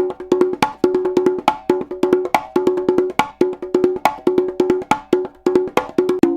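Congas playing a steady, fast repeating rhythm: clusters of ringing open tones mixed with sharper, higher-pitched strokes, the pattern coming round a little under once a second.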